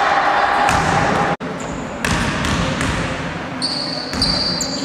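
Echoing noise of a basketball game in a gym hall: voices and crowd chatter, with a few thuds of the ball. Two short high-pitched squeals near the end.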